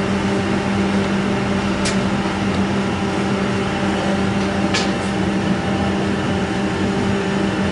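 Industrial machine running with a steady hum and a strong constant low tone, with two short sharp clicks about two and five seconds in.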